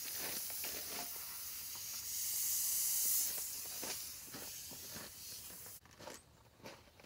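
Compressed air hissing from the chucks and hoses of a four-tire inflate/deflate system as they are connected to the tire valves. The hiss is strongest about two to three seconds in and cuts off suddenly near the end, with footsteps crunching on gravel and leaves.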